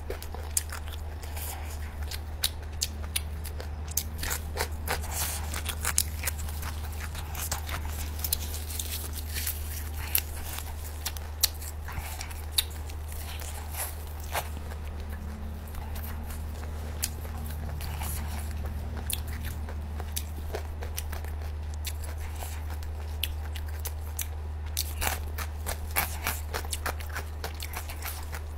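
Close-miked chewing and biting of nem chua, the Vietnamese fermented pork roll, with many sharp wet mouth clicks, thickest in the first half and again near the end, over a steady low hum.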